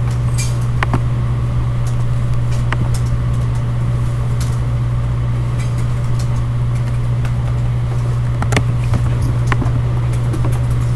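Steady low hum in a classroom, with scattered light clicks and taps.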